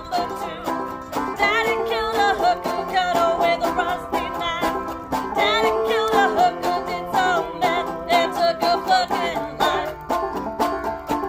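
Acoustic string band playing live: banjo picking over a dense scraping and clicking rhythm from a washboard. A voice sings long wavering notes with vibrato, twice.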